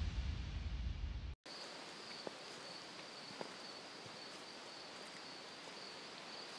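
Electronic music cuts off about a second and a half in. Then comes faint woodland ambience: a steady high insect trill with a few soft ticks and rustles.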